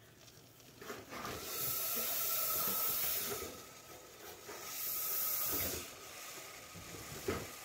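Can of expanding spray foam hissing as foam is forced through its straw tip into a hole drilled in a lawn mower tire, in two bursts, the first about two seconds long and the second about one.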